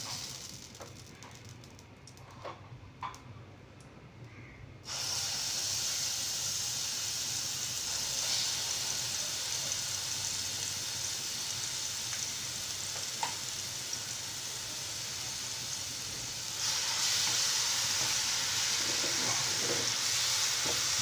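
Mustard-seed spice paste frying in hot mustard oil in a pan: after a few quiet seconds the sizzle starts suddenly, about five seconds in, as the paste hits the oil. It gets louder near the end, when the paste is stirred and spread across the pan.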